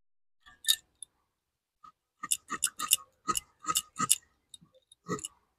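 Ginger being sliced against a boti, the upright curved blade of a Bengali kitchen: a quick run of about ten crisp snicks, starting about two seconds in.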